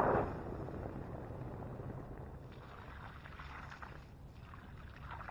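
Water hissing and splashing on the hot ashes of a campfire as it is doused. It is loudest at the start and dies away within the first half-second, then fainter pouring and sizzling follow a few seconds in as more water goes on.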